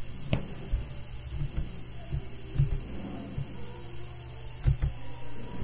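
Steady low electrical hum from the recording setup, with a few faint soft thumps and a light click.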